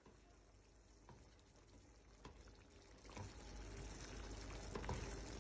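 Spatula stirring a thick meatball-and-potato stew in a nonstick pan: a few faint taps at first, then wet sloshing and scraping that grows louder from about three seconds in.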